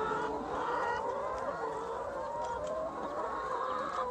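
A flock of young laying hens clucking and calling together, many overlapping voices in a steady chorus.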